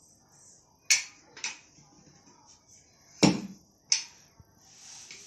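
Long wooden rolling pin knocking against a wooden dough board as a ball of gözleme dough is rolled out: four short, sharp knocks, the loudest about three seconds in.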